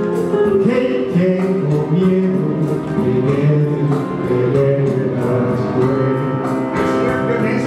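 A man singing karaoke into a handheld microphone over a recorded backing track, the music playing without a break.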